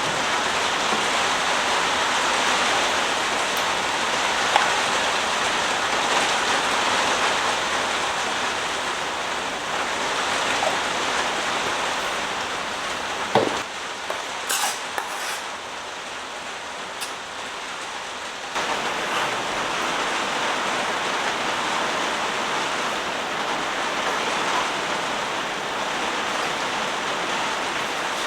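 Heavy rain falling in a dense, steady hiss. About halfway through it drops quieter for some five seconds, with a few sharp drip-like ticks, then returns at full strength.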